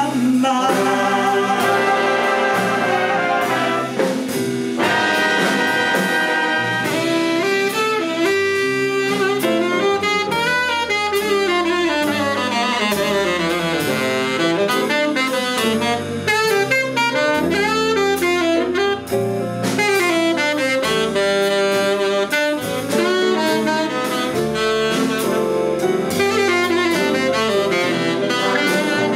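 Live big band playing jazz: a saxophone solo over the brass section, double bass and drum kit.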